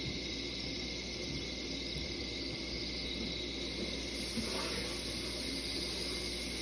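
Aquarium bubbler's air stone bubbling steadily in a shallow tub of water: a constant hiss with a faint low hum underneath.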